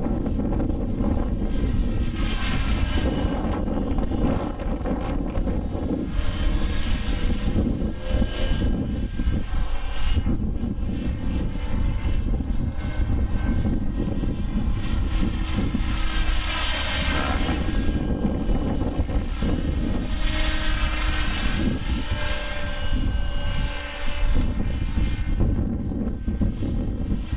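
Align T-Rex 600 radio-controlled helicopter in flight, its rotor and drivetrain whine shifting up and down in pitch as it manoeuvres. Heavy wind buffets the microphone with a low rumble.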